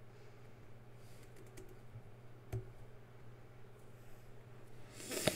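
Computer keyboard being typed on: a few scattered keystrokes, then a quicker, louder run of keys near the end.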